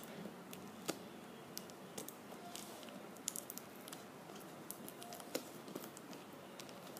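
Faint, scattered taps and rustles of a cardboard box being handled and turned over in the hands.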